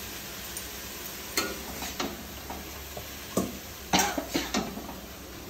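Food sizzling steadily in a pan while a spoon stirs, knocking and scraping against the pan a few times, most often in the second half.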